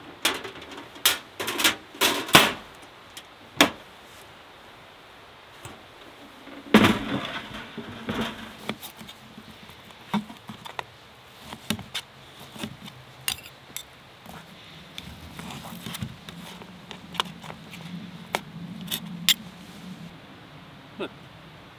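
Irregular clinks and knocks of small hard objects being handled, in a cluster at the start, a louder knock about seven seconds in and scattered lighter clicks after that.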